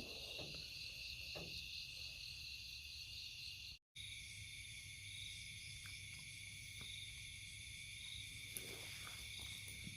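Insects chirring: a steady high-pitched chorus that drops out completely for a moment about four seconds in, then carries on.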